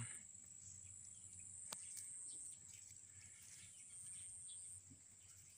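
Near silence: faint outdoor ambience with a thin, steady high-pitched tone and a single brief click a little under two seconds in.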